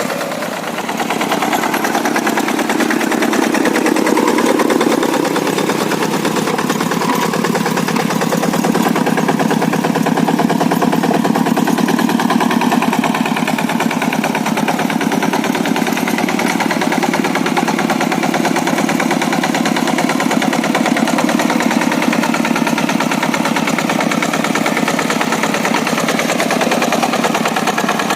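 Quick G1000 hand tractor's Kubota single-cylinder diesel engine running with a fast chugging beat. Its note rises a few seconds in, then holds steady.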